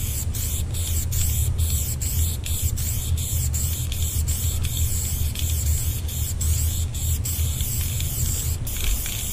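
Aerosol spray-paint can hissing as a green fill is sprayed onto a wall, in a run of short strokes with brief breaks between them. A steady low rumble runs underneath.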